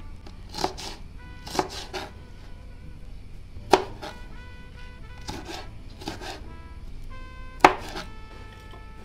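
Large kitchen knife chopping small red hot peppers on a plastic cutting board: irregular knife strikes on the board, two of them sharply louder, about four seconds in and near the end.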